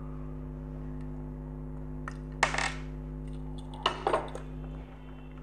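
A circuit board being handled and set down on a workbench: one sharp clack about halfway through, then a quick cluster of clicks and knocks about a second and a half later. A steady low electrical hum runs underneath.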